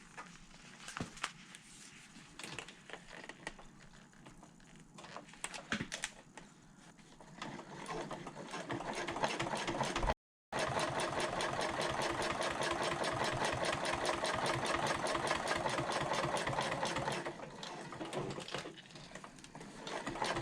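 Sewing machine running at a steady, rapid stitch, top stitching along the edge of a folded fabric strap. Light handling clicks come first; the machine starts about eight seconds in, and runs steadily until it eases off a few seconds before the end.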